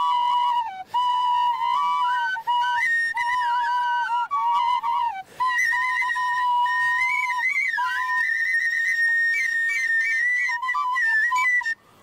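Two small folk flutes playing a melody together, stepping from note to note with brief breaths between phrases. In the second half one holds a high, almost steady note above the other's line.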